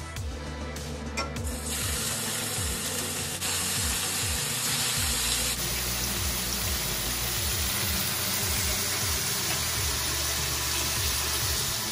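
Beef chuck steak slices and garlic sizzling in butter in a hot stainless pan: a steady hissing sizzle that sets in about two seconds in and grows brighter about halfway through. Background music with a low bass line runs underneath.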